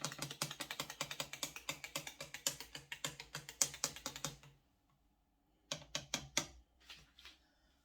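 A teaspoon stirring coffee in a cup, clinking rapidly against the sides and stopping about four and a half seconds in. A few louder clinks follow about a second later.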